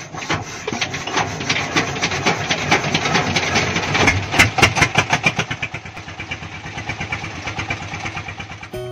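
Small wooden fishing boat's inboard engine starting and running with a steady knocking beat. The beat quickens and grows louder about four seconds in, then settles to a slower, quieter idle.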